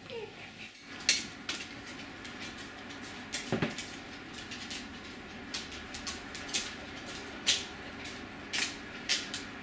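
Scattered light clicks and taps of a small metal scent tin being handled with gloved hands against a newborn puppy, about a dozen sharp ticks over a steady hiss. The loudest comes about a second in, and another strong one near the end.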